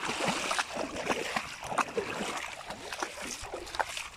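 A dog splashing in shallow pond water: a run of irregular splashes and sloshes that thin out near the end.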